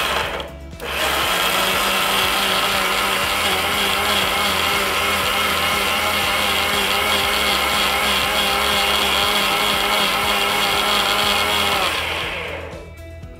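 Indian mixer grinder (mixie) with a steel jar running, grinding tomatoes and sambar powder into a paste with no water added. A short first burst and a brief pause, then a steady motor whine that winds down near the end.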